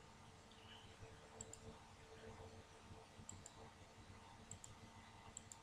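Near silence: room tone with a few faint pairs of short clicks, about a second or so apart, from a computer mouse being clicked to advance presentation slides.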